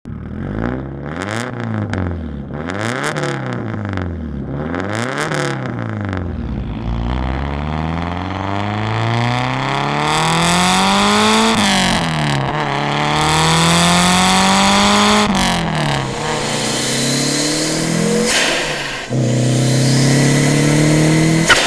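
Lancia Delta HF Integrale Evoluzione's turbocharged 2.0-litre four-cylinder through a straight-pipe exhaust, heard close to the tailpipe. It is revved three times, then pulls up through the gears, the pitch rising and dropping sharply at each of two shifts. Near the end it settles to a steadier note.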